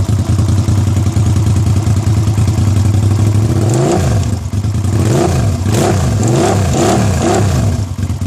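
Suzuki SV650's V-twin engine idling steadily, then blipped several times in quick succession from a little past the middle, each blip rising and falling in pitch, before settling back to idle near the end. It is being run to check for an abnormal noise.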